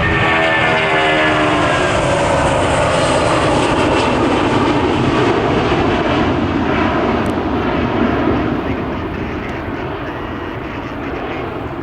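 Boeing 757 jet engines at takeoff power as the airliner passes, its whine falling in pitch as it goes by. The roar begins to fade about eight seconds in.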